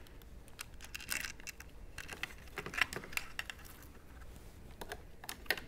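Scattered light clicks, taps and rattles of plastic and metal parts being handled as the gauge cluster is lifted out of a Harley-Davidson touring bike's inner fairing.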